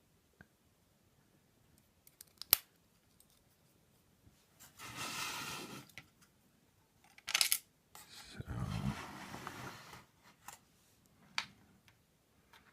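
Small metal tools scraping and clicking on a Euro profile lock cylinder while prying off its retaining clip. There is a sharp metallic click about two and a half seconds in, another near seven seconds, and stretches of scraping around five and nine seconds in.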